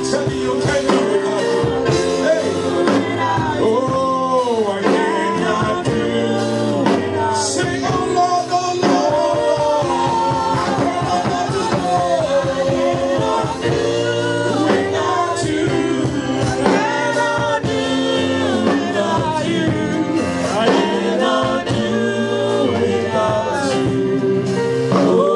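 Gospel praise music: singing over instrumental accompaniment with held chords and a steady beat.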